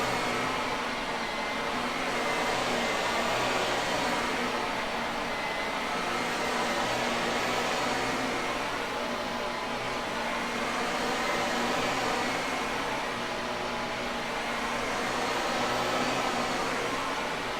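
Shark vacuum cleaner running steadily: an even rush of air over a steady motor hum, with the hiss swelling and easing gently every few seconds.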